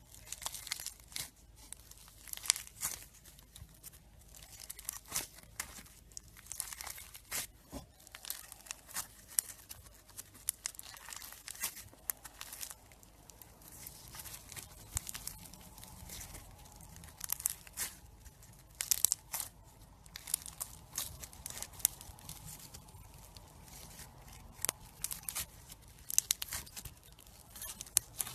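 Slime being pressed, squished and stretched by hand, giving a run of irregular sharp crackles and pops.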